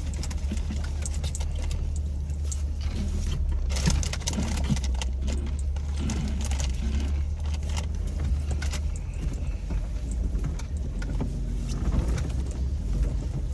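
Jeep driving slowly over an off-road trail: a steady low engine drone with frequent irregular rattles and clunks from the vehicle.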